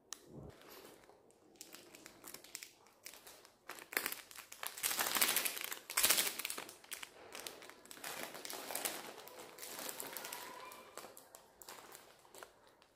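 Plastic instant-noodle packet crinkling as it is handled, in irregular rustling bursts that are loudest around four to six seconds in.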